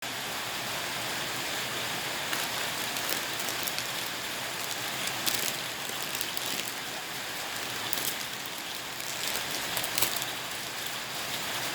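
Meat grinder crunching dry instant noodles: a steady gritty hiss with scattered sharp crackles and snaps.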